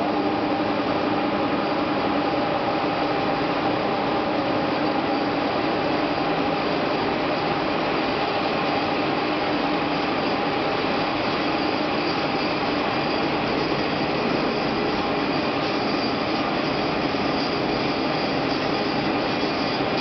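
Steady, even drone of an aluminum rod continuous casting and rolling line running, with several steady tones held through the noise.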